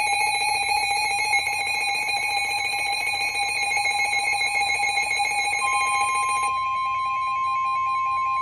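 Weather radio warning alarm: a steady electronic alarm tone of several pitches sounds, and about five and a half seconds in a single pure tone, the 1050 Hz warning alarm tone of NOAA Weather Radio, comes in. About a second later the many-pitched alarm fades down, leaving mostly the pure tone.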